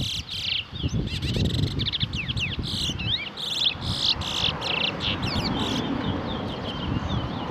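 Twa-twa (large-billed seed finch) song: rapid chirps, trills and quick whistled glides, dense for the first five seconds or so and sparser after. A steady low background murmur runs underneath.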